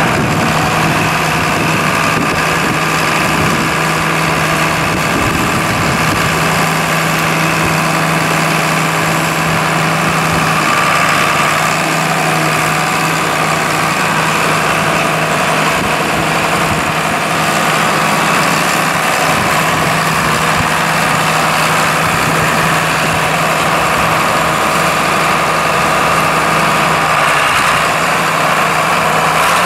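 John Deere 4230 tractor's six-cylinder 6404 diesel engine running steadily as the tractor is driven around.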